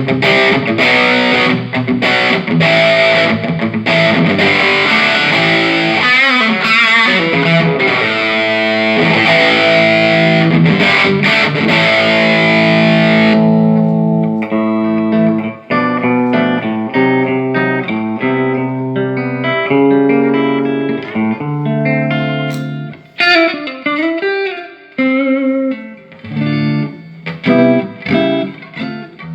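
Electric guitar played through a Peavey Classic 30 tube combo amp, working again after its bad filter capacitors were replaced. The first half is a distorted drive tone. About halfway through it switches to a cleaner tone with separate notes, and there are short pauses between phrases near the end.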